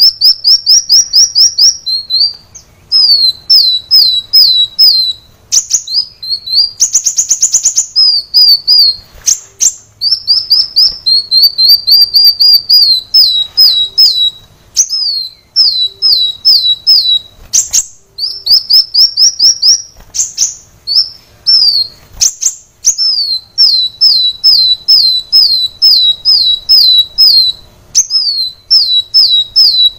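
Kolibri wulung sunbird singing: long rapid series of short, sharp, high chirps, each sliding down in pitch, about two or three a second. A brief buzzy trill about seven seconds in.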